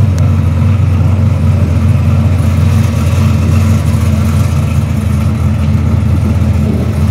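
Drag car's V8 engine idling loudly at the start line, a steady low note with no revving.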